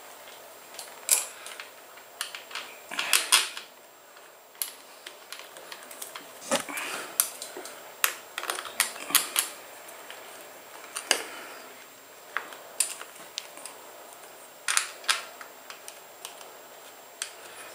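Irregular clicks and light rattles from a scooter's plastic throttle housing being handled and seated on the handlebar while a screw is started into it.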